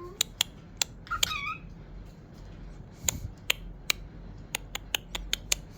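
A cockatiel gives one short chirp about a second in, amid scattered sharp clicks and taps.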